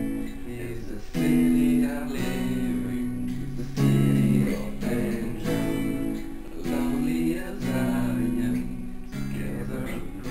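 Stratocaster-style electric guitar strummed in a repeating chord pattern, with accented strokes about every second or so.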